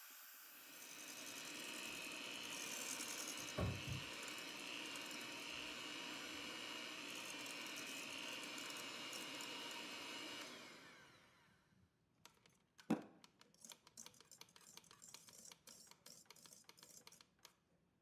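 Electric hand mixer running steadily as its beaters whip egg whites in a stainless steel bowl to stiff, glossy peaks, with a single knock a few seconds in. About ten seconds in it is switched off and winds down, followed by scattered light clicks and one sharper click.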